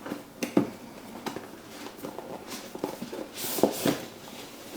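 Cardboard packaging being handled and opened: scattered taps and knocks, with a short rustling scrape about three and a half seconds in.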